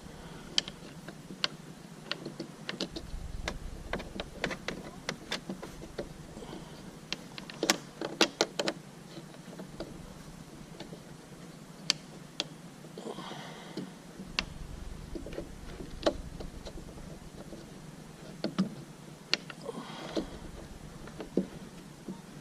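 Scattered clicks and light knocks of hands and tools working at a stuck part on a car, with a quick run of clicks about eight seconds in and a few more sharp knocks later.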